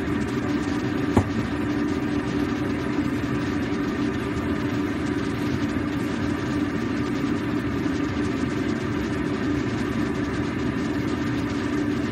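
Steady low hum in a kitchen with a droning tone, as a wok of soup boils on a gas stove. There is one sharp knock about a second in.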